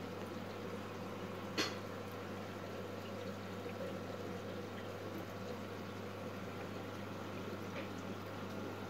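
Aquarium sponge filters bubbling steadily, over a constant low hum, with one sharp click about a second and a half in.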